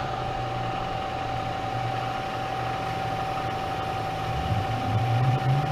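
Spindle of a Bridgeport EZ Trak CNC vertical mill's Series 1 head running steadily, just switched on, with a constant whine over its motor hum.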